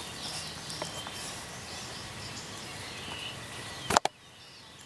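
Faint outdoor background with birds chirping, broken about four seconds in by a sharp double knock as the camera is handled and set in place, after which the sound goes quieter.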